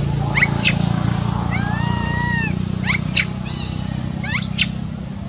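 Young macaque screaming, distressed at being left alone: several sharp, high shrieks that sweep up and down, with a longer arching wail in the middle. A steady low hum runs underneath.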